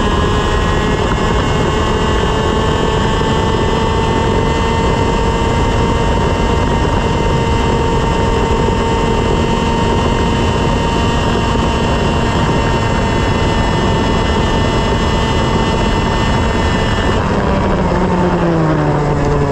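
125cc TaG two-stroke kart engine at full throttle, heard onboard. Its pitch climbs a little, then holds near top revs for about fifteen seconds, and in the last couple of seconds the revs drop away quickly.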